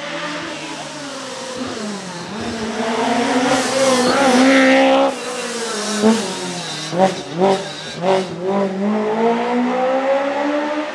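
Lancia Rally 037's supercharged 2.0-litre four-cylinder engine accelerating hard, rising in pitch to its loudest about four to five seconds in. It drops off suddenly, gives a string of four or five short, sharp revs, then runs on more steadily.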